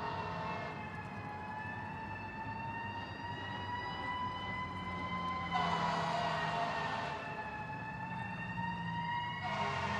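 A recorded fire engine siren wailing, its pitch gliding slowly up and down over several seconds, with a low vehicle rumble underneath. The recording seems to jump or restart about five and a half seconds in and again near the end.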